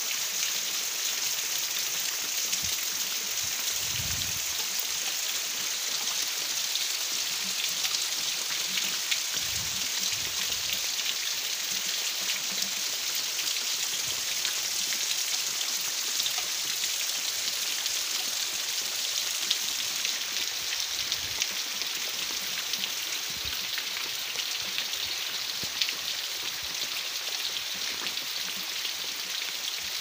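Steady rain falling on tree leaves and a tiled roof, with water running off the roof edge: an even hiss with scattered patter of drops.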